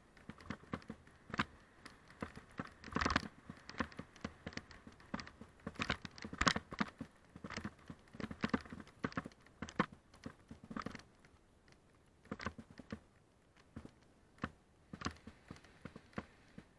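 Mountain bike clattering down a rough dirt trail: a dense, irregular run of knocks and rattles as the bike jolts over roots and stones, with tyres crunching on dirt and gravel.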